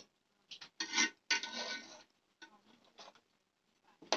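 Metal spoon scraping against the sides and bottom of a metal pot while stirring thick mutton curry, in several irregular strokes.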